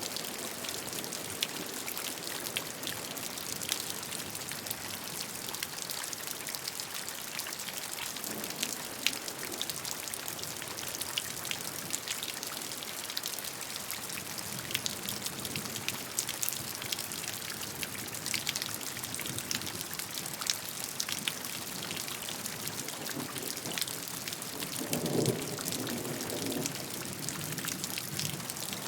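Steady rain: a dense, even hiss of rainfall with many individual drops ticking sharply through it, and a brief deeper swell about 25 seconds in.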